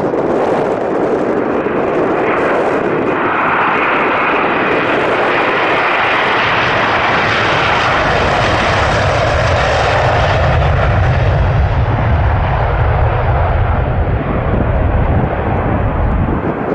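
Jet airliner's engines passing close by: loud engine noise with a high whine, giving way to a deep low rumble in the second half as the plane moves off.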